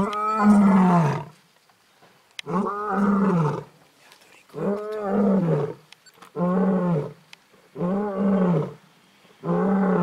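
Lioness roaring: about six long, falling calls of roughly a second each, repeated every second and a half to two seconds, growing a little shorter toward the end.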